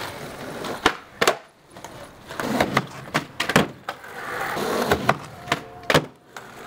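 Skateboard wheels rolling on concrete, broken by several sharp clacks of the wooden deck as heelflips are popped and landed.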